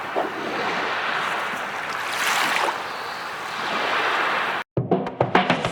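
Rushing wash of water, swelling and easing twice. It cuts off just before the end, and music with a steady beat starts.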